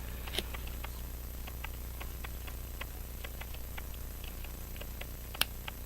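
Small, irregular clicks and taps of tweezers and a pocket watch mainspring barrel cover being pressed onto the barrel, the cover not staying seated; one sharper click about five and a half seconds in.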